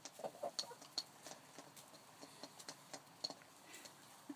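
Chickens pecking oats out of a small hand-held bowl, their beaks striking it in quick, irregular clicks.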